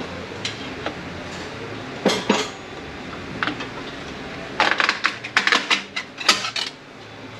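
Metal parts of a GM 8L90 automatic transmission clinking and clattering as they are handled during teardown: a few separate clinks, then a quick run of clatter between about four and seven seconds in.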